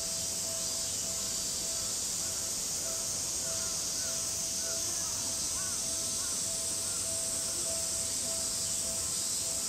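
Cicadas droning steadily in the summer trees, a high even hiss, with a bird calling several short times in the middle.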